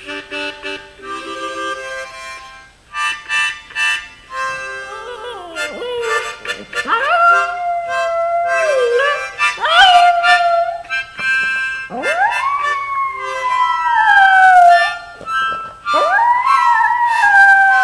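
A harmonica plays chords while a small dog howls along with it. The howls come in from about five seconds in. Each one swoops up and then slides slowly down, and the longest last two to three seconds near the end.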